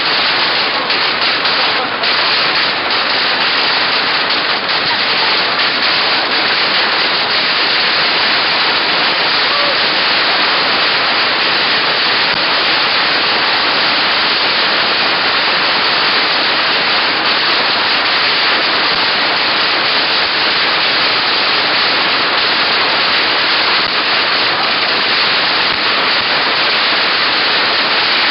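Many hanging strings of Chinese firecrackers going off together: a dense, steady crackle of rapid bangs merging into one loud rush.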